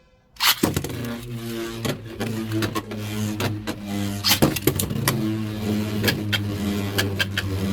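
Beyblade X spinning tops launched into a plastic stadium with a sudden start about half a second in, then whirring steadily with many sharp clicks as they strike each other and the stadium wall during a test battle.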